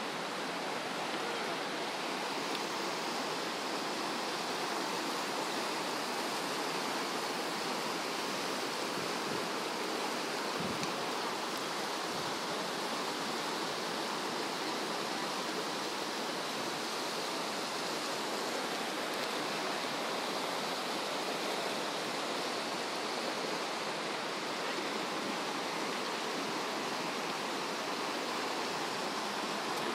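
The Virgin River's shallow rapids rushing over rocks: a steady, even wash of flowing water.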